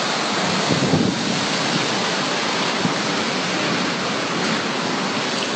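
Strong storm wind and heavy rain: a steady rushing noise with uneven gusts.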